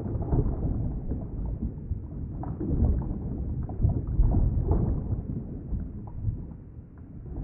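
Underwater ambience: a muffled, low rumble of moving water that swells and eases, with scattered short bubbly blips.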